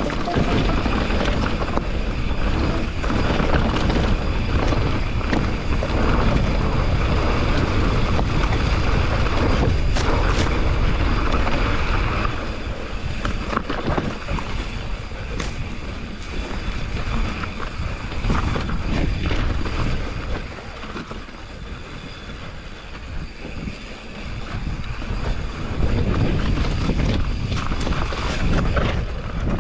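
Wind rushing over a helmet or handlebar camera microphone, with the rolling and rattling of a mountain bike over dry dirt and rock and scattered sharp knocks from bumps. It drops to a quieter stretch about two-thirds of the way in, then picks up again.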